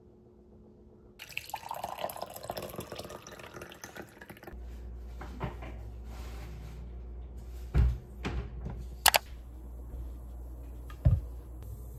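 Tea poured from a cast-iron teapot into a glass: a splashing pour of about three seconds, its pitch rising slightly as the glass fills. After it comes a steady low hum with a few sharp knocks and clicks of handling.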